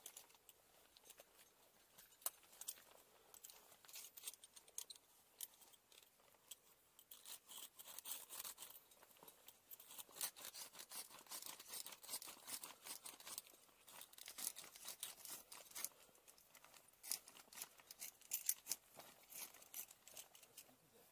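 Ice screw being twisted by hand into waterfall ice: faint, irregular crunching and clicking, getting busier after the first several seconds.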